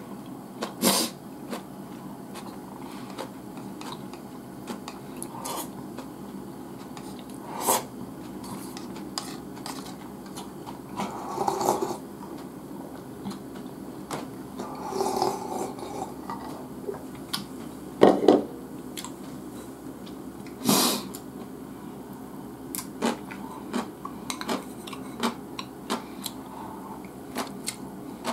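Chopsticks clicking and scraping against a lacquered bowl during eating, in scattered irregular taps, with a few short chewing and mouth sounds in between; the loudest clicks come about 18 and 21 seconds in.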